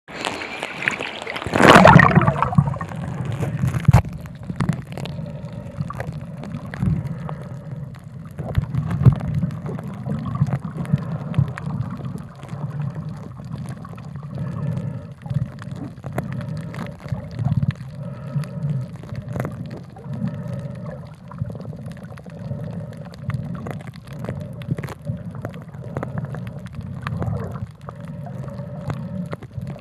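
Water sloshing and gurgling, with a loud splash about two seconds in, then a steady low churn scattered with small clicks.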